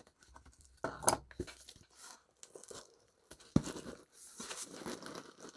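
Cardboard shipping box being cut and torn open: irregular scraping, tearing and crinkling, with a sharp click about three and a half seconds in.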